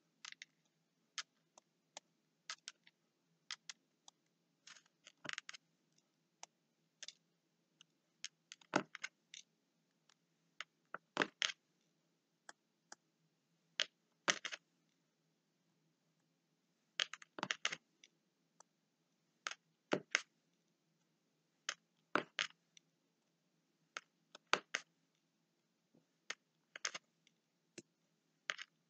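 Square diamond-painting drills pressed onto the canvas with a drill pen, each giving a small sharp click as it snaps in between its neighbours, a sign that the drills are properly seated. The clicks come irregularly, every second or so, sometimes several in quick succession.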